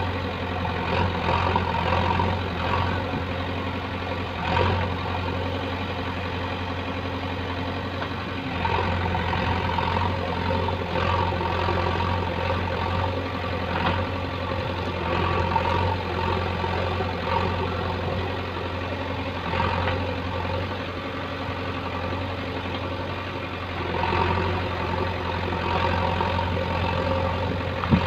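JCB backhoe loader's diesel engine running under hydraulic load while the backhoe arm digs soil. The engine note swells and eases every few seconds as the arm works, with a few brief knocks.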